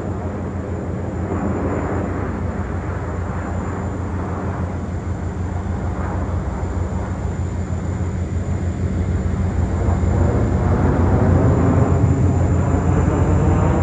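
Jet engine noise from a formation of Russian fighter jets flying over, a steady rushing sound that grows louder about ten seconds in as the formation comes closer.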